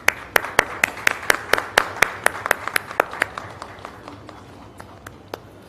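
Audience applause, with one clapper close by clapping about four times a second over the rest of the room; it thins out after about three seconds into a few scattered claps.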